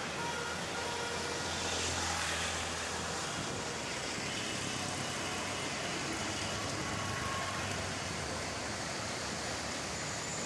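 Steady traffic and road noise heard from a vehicle moving along a city street. It swells louder about two seconds in, as of a vehicle passing close by.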